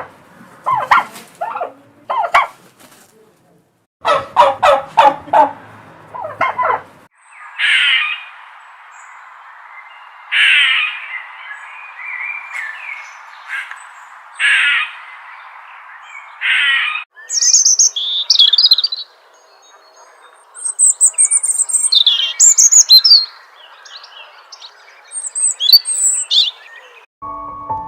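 A domestic turkey gobbling in quick rattling bursts. About seven seconds in it gives way to a bird calling about five times over a steady hiss, and then to rapid high chirps and trills of songbirds.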